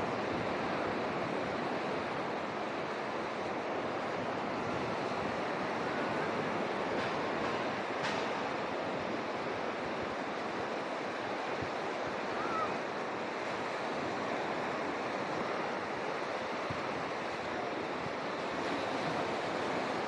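Ocean surf breaking and washing up a sandy beach, a steady rushing wash.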